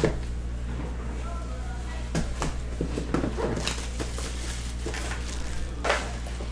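Cellophane shrink wrap crinkling and tearing as it is pulled off a sealed trading-card box, in several short bursts of crackling, the sharpest near the end, over a steady low hum.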